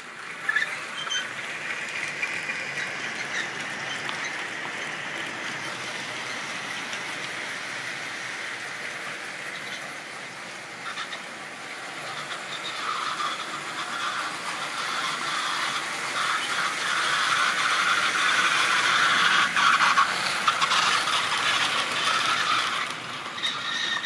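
Model railway train running on a track layout: a steady small-motor whir with wheels rattling and ticking over the rails. It grows louder in the second half as the train of vans comes close and passes, then falls away near the end.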